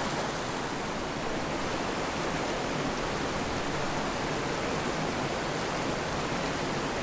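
Mountain creek water rushing steadily over rocks, a constant even wash with no breaks.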